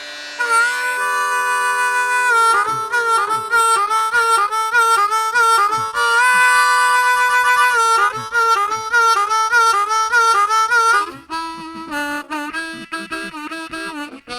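Slow blues harmonica playing with bent notes, as background music.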